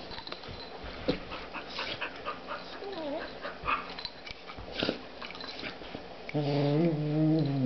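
An Australian Shepherd and a Golden Retriever puppy play-fighting: scuffling and mouth clicks, a short whine about three seconds in, then a low, steady play growl lasting just over a second near the end, the loudest sound.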